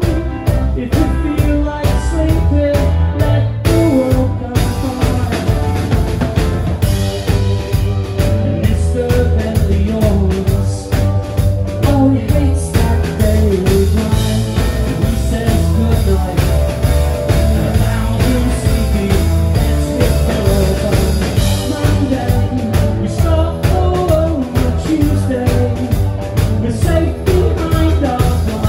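Live rock band playing a song: electric guitar, keyboard and drum kit with a steady beat, and a male lead singer singing at the microphone.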